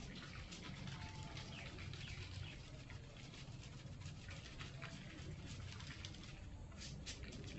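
Salt grains shaken from a plastic bottle pattering faintly onto sliced eggplant and mustard greens in a pot, as scattered light ticks that grow a little stronger near the end, over a low steady background rumble.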